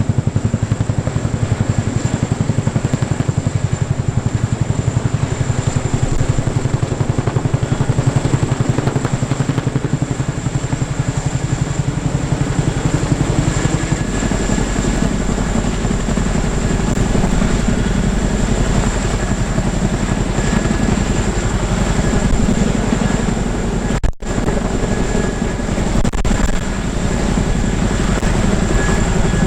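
Military helicopter's rotors and turbine engines running loudly and steadily, with a fast rotor beat. The sound shifts in pitch balance about halfway through and drops out for an instant near the end.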